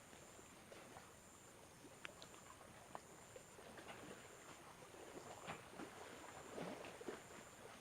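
Near silence with faint rubbing and scattered light taps and clicks of hands working a head massage.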